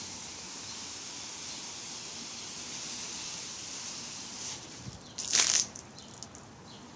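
Baking soda and vinegar mixture fizzing with a steady high hiss that dies away about four and a half seconds in, followed by a brief loud rustling burst.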